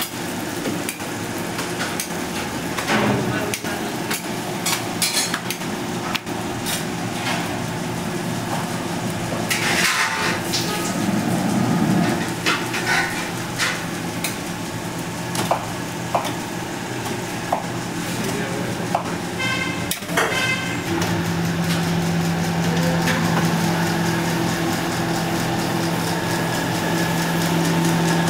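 Commercial kitchen at work: scattered clanks and clatter of metal pots and utensils over a background of food frying. About two-thirds of the way through, a steady mechanical hum comes in and holds.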